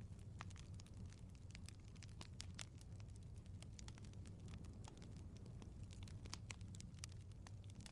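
Fireplace fire crackling, with frequent small irregular pops and snaps over a low steady rumble.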